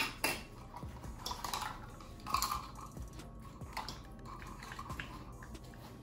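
Potato masher working boiled potatoes in a metal pot: irregular squelches and soft knocks, with a louder knock right at the start and another a little past two seconds in.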